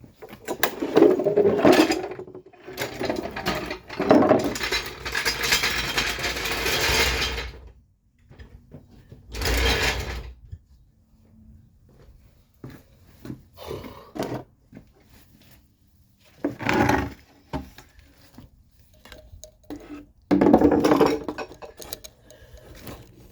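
Repeated bursts of mechanical rattling and clattering from tools and parts being worked on a car's front suspension. The longest burst lasts about seven seconds, followed by three short ones and scattered clicks.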